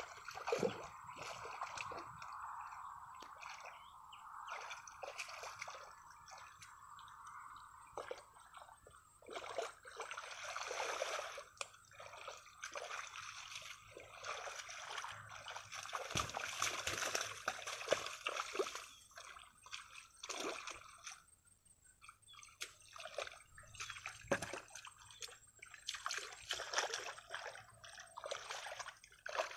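Shallow muddy paddy water sloshing, splashing and trickling as hands grope through the mud for fish, with irregular splashes and louder spells of churning about a third of the way in, just past the middle, and near the end.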